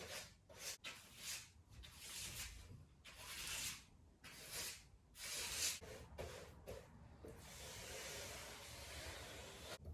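Repeated rough rubbing strokes against a surface: several short strokes, then a longer steady stretch of rubbing in the last few seconds.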